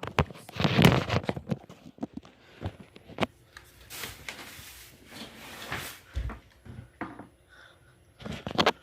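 Slime being stirred in a container: a utensil scraping through the glue and activator and knocking irregularly against the sides, loudest about a second in.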